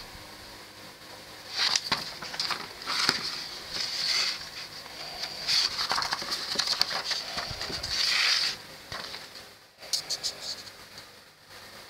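Paper pages of a model-kit instruction manual being handled and turned, rustling in short bursts several times with small crisp clicks and crackles, quieter near the end.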